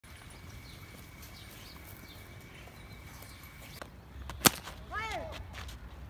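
A cricket bat strikes a tennis ball with a single sharp crack, followed about half a second later by a short call that rises and falls in pitch. Before the crack there is only a faint background with a thin, steady high tone.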